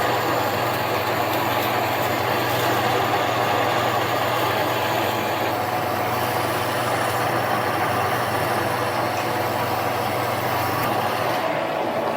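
Harbor Freight mini lathe running steadily with a constant motor hum while a 1-inch drill bit fed from the tailstock bores into a spinning polycarbonate workpiece.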